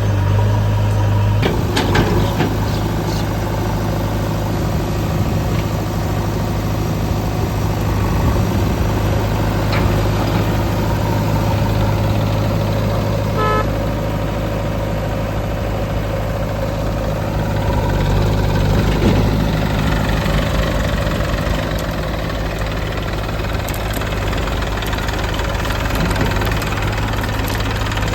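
Heavy diesel machinery engine running steadily with a low drone, with a short horn toot about halfway through and a few brief knocks.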